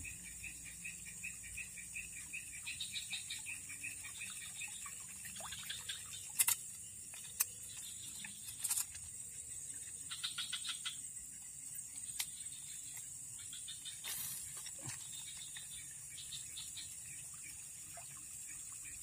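Waterside wildlife chorus: a steady high-pitched insect drone with repeated bursts of trilling calls from insects or frogs. Several short, sharp clicks stand out, the loudest about a third of the way in.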